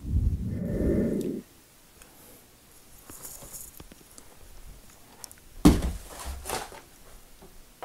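Rumbling handling noise as fingers rub close to a phone's microphone for about a second and a half. Then a sharp thump about five and a half seconds in, followed by a few softer knocks.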